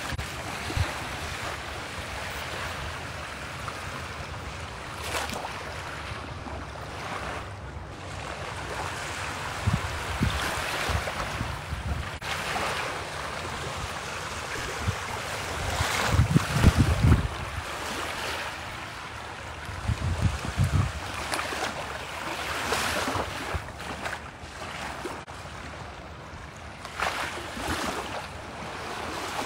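Small waves lapping and washing onto a sandy shore, with wind gusting on the microphone several times in low rumbling buffets, loudest about halfway through.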